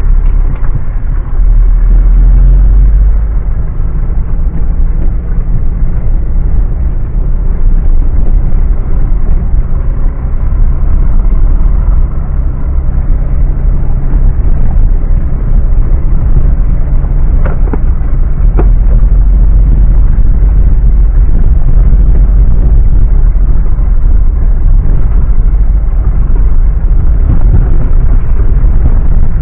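Mitsubishi Pajero driving off-road: a loud, continuous low rumble of engine and drivetrain over rough ground, with a couple of sharp knocks a little past halfway.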